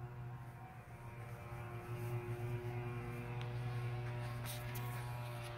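Chevy HHR SS idling with the hood up: a steady low hum with several steady tones above it, a little louder from about two seconds in.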